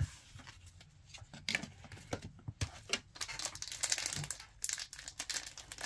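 Trading-card booster pack wrapper crinkling and being torn open: a run of quick, irregular crackles from about a second and a half in, after a single knock right at the start.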